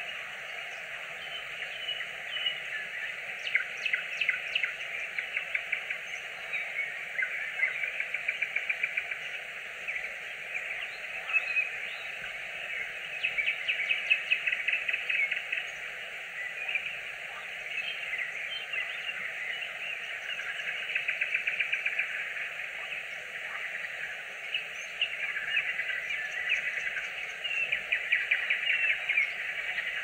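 Nightingale singing: phrases of fast rattling trills and rapidly repeated notes, a few seconds apart, over a steady background hiss.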